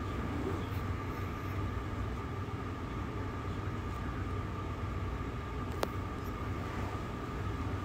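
Steady low background hum with a faint, steady high tone over it, and one sharp click about six seconds in.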